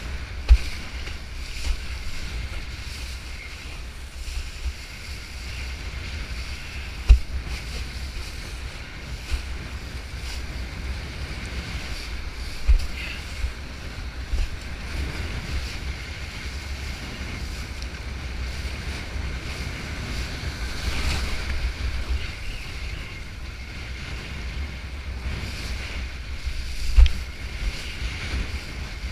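Kitesurfing through choppy surf: wind rumbling and buffeting on the microphone over a steady hiss of water spray and surf as the board skims the chop. A few sharp thumps stand out, the loudest about 7 and 27 seconds in.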